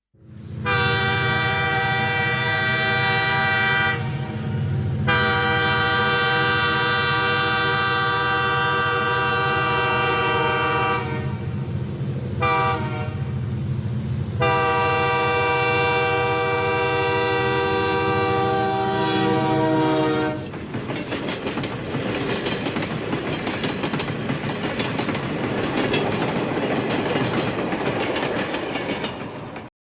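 Locomotive horn sounding three long blasts, the last one dropping slightly in pitch as it ends, followed by the clickety-clack rumble of the train running over the track until it cuts off suddenly.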